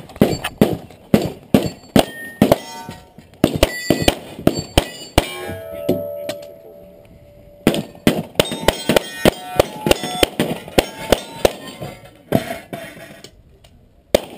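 Pistol shots fired in fast strings, several followed by the clang and ring of struck steel targets. The shooting breaks off for about two seconds around the middle, with a plate still ringing, then resumes.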